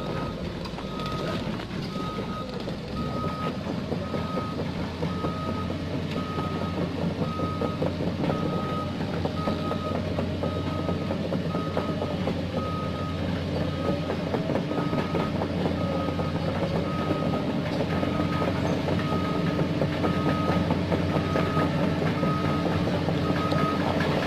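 JCB excavator's motion alarm beeping steadily, a little over once a second, over the excavator's diesel engine running as it travels slowly.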